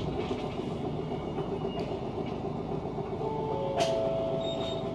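Tokyu city bus with its engine running, a steady low rumble heard from inside, with a few sharp clicks. A held tone of several pitches comes in about three seconds in.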